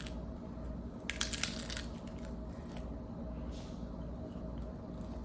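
Crunching of a puffed shrimp-flavored rice flour chip being bitten and chewed: a short run of crisp crackles about a second in, and a fainter one later.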